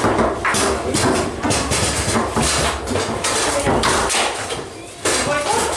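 Tornado foosball table in fast play: a rapid, irregular clatter of the hard ball cracking off the plastic players and the table walls, with rods sliding and knocking in their bearings. It eases briefly shortly before the end, then picks up again sharply.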